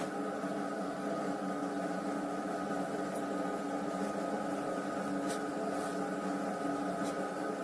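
A steady mechanical hum with several held tones.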